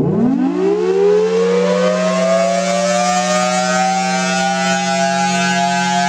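Federal Signal Thunderbolt 1003 outdoor warning siren starting up: its tone winds up steeply in the first second and levels off within a few seconds into a loud, steady wail over a steady low hum, while the horn rotates.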